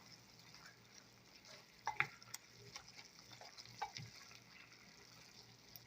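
A spatula stirring three-cup chicken and Thai basil in a pot, giving a few faint scrapes and clacks, the loudest about two seconds in and again near four seconds. A low steady hum runs underneath.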